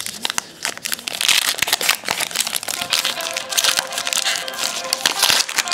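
Trading-card pack wrappers crinkling and cards being handled, a dense run of rustles and clicks. About halfway through, a telephone starts ringing with a steady musical ringtone that carries on under the rustling.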